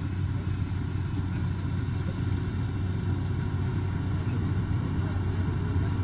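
Yanmar AW70 combine harvester's diesel engine running steadily: an even, low drone that does not change.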